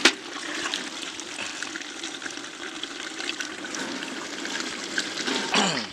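A metal ladle stirring a steaming pot of thick pork curry over a wood fire: steady wet, liquid stirring and simmering sounds, with one sharp knock of the ladle against the metal pot at the start.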